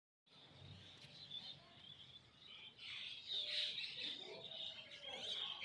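Small birds chirping and twittering, several quick calls overlapping, louder from about three seconds in.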